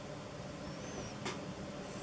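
Steady low background hum and rumble, with one short sharp click about a second and a quarter in and a faint high chirp just before it.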